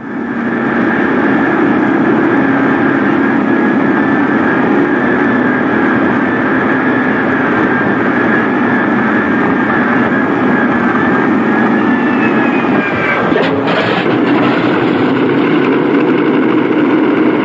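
Douglas A-26 Invader's twin Pratt & Whitney R-2800 radial piston engines running at high power, a loud steady drone with a constant high whine on top. A short clatter of a few sharp knocks sounds about thirteen seconds in.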